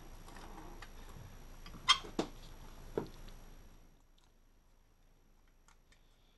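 A few sharp clicks and knocks of tools and plastic and metal engine parts being handled while the coil-pack bracket bolts are started by hand. The loudest click comes about two seconds in.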